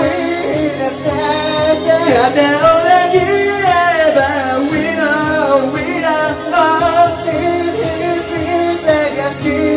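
Karaoke: a pop backing track playing loudly with a group singing along into handheld microphones.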